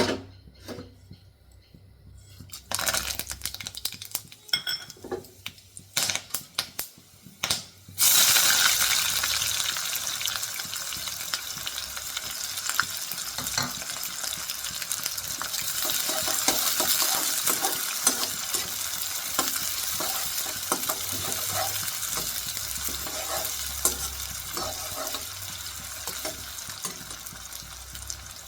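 A few scattered clinks and knocks of utensils on a pan. About eight seconds in, food goes into hot oil with a sudden loud sizzle that keeps frying and slowly dies down, under the clicks and scrapes of stirring in the pan.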